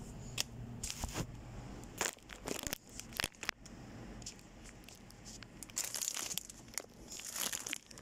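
Plastic packaging crinkling and rustling, with scattered short knocks and taps, as goods are handled and packed into a cardboard carton.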